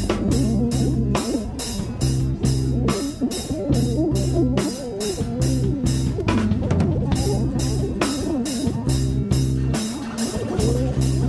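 Band music: a drum kit keeping a steady beat of about three hits a second under repeating bass notes and a guitar line. The drums drop out for about a second around six seconds in, then the beat returns.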